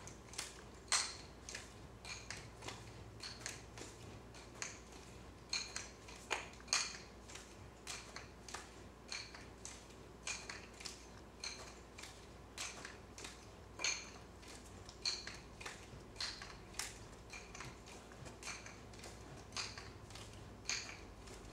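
Wooden nunchaku clicking and clinking as they are swung, caught and passed hand to hand around the waist and neck: short sharp clicks, a couple to a few each second at an uneven pace, some with a brief metallic ring.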